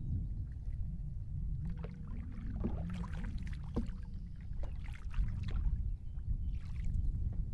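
Canoe paddling: a wooden paddle dipping and pulling through calm water, with irregular splashes and drips, over a steady low rumble.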